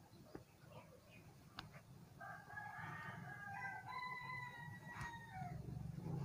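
A rooster crowing in the background: one long crow of about three seconds, starting about two seconds in, over a faint low steady hum.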